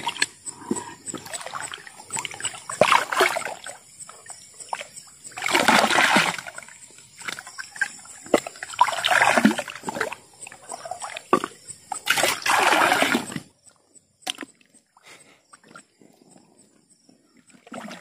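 River water splashing and sloshing in repeated bursts of a second or so, the strongest about six, nine and twelve seconds in. It then falls much quieter for the last four seconds, apart from a single click.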